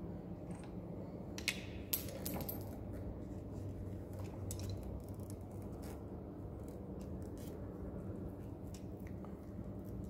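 Light clicks and metallic clinks of a hex key and the handlebar's brake lever unit being handled, the sharpest two about one and a half and two seconds in, over a steady low hum.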